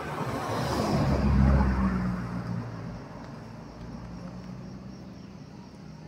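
A motor vehicle passing by: its engine and road noise swell to a peak about a second and a half in, then fade over the next second or so, leaving a faint low hum.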